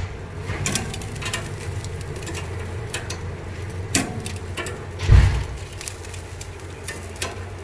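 Chicken pieces being turned over on a hot oven wire grill: scattered clicks and light knocks over a steady low hum, with one heavier low thump about five seconds in.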